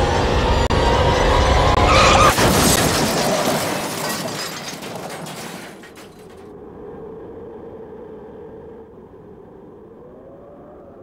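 Car crash sound effect: a rising tyre squeal, then a sudden impact about two seconds in with glass shattering and debris crashing for a few seconds, dying away into a quiet, steady music tone.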